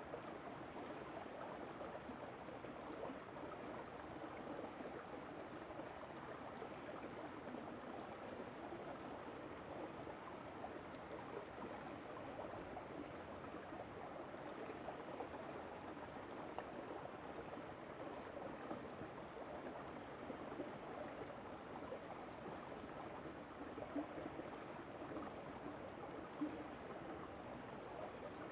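River water flowing and gurgling over rocks, a steady rushing with occasional small splashes.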